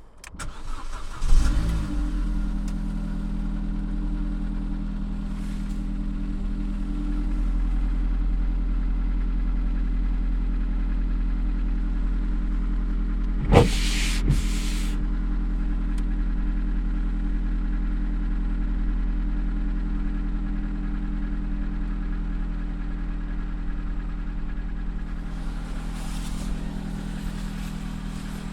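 Opel Corsa D's 1.2 Z12XEP four-cylinder petrol engine cranked and catching about a second in, then settling into a steady idle. Two sharp knocks about halfway through.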